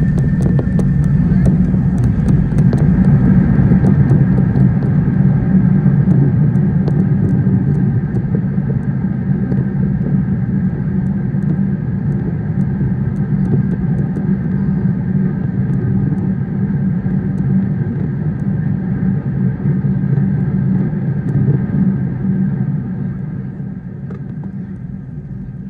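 Cabin roar of a Qantas Airbus A380 on its landing rollout, ground spoilers up, as it decelerates down the runway, heard from inside the cabin. The low, steady roar has rattles in the first few seconds and dies away gradually as the aircraft slows, falling further near the end.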